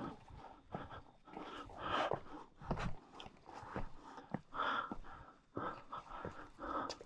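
A hiker under a heavy pack breathing hard, in uneven breaths about once a second, with a few short clicks and knocks.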